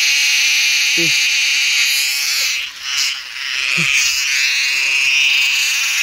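Cicada calling: a loud, steady high buzz that breaks off briefly about three seconds in, then resumes.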